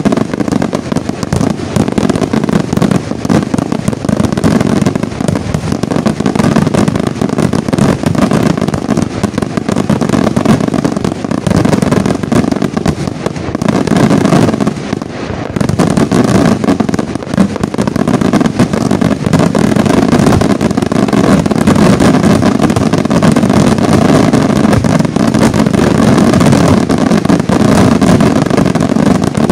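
Professional aerial fireworks shells bursting in a dense, overlapping barrage of bangs and crackles that merge into a continuous rumble. It eases briefly about halfway through, then thickens into a steadier wall of bursts.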